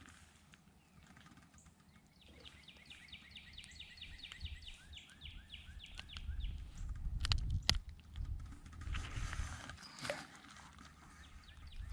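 A songbird singing a long, rapid trill of repeated down-slurred notes, several a second, starting about two seconds in and coming back near the end. Underneath, a low rumbling noise swells in the middle, with two sharp clicks a little past halfway.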